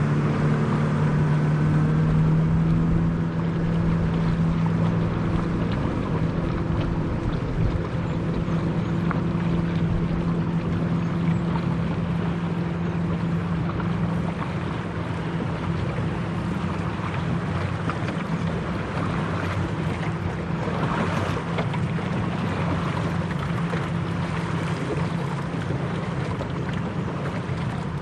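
Boat motor running steadily underway, a constant engine hum with wind and water noise over it.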